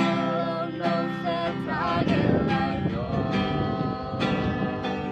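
Music: a song with acoustic guitar and a sung melody.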